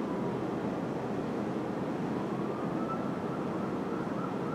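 Fire truck siren sounding faintly over steady city traffic noise: one slow rising and falling wail, switching to a faster yelp near the end.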